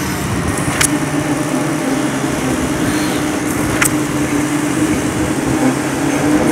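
Monkey lift building-material hoist running steadily as its winch lowers a loaded crate on the wire rope, a constant machine hum, with two sharp clicks about a second in and near four seconds.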